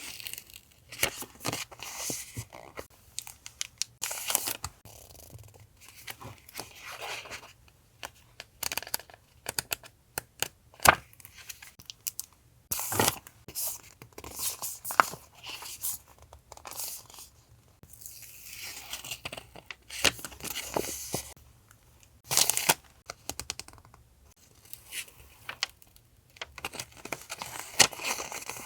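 Paper and packaging being handled at a desk: irregular crinkling, rustling and tearing, broken by scattered sharp clicks and taps. The loudest is a single sharp click about eleven seconds in.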